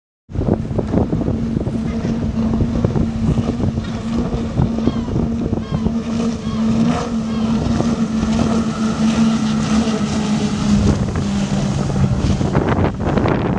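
Twin 350 hp Yanmar diesel engines of a 40-foot Sunseeker offshore powerboat running at high speed: a steady engine drone over the rush of water, with wind on the microphone.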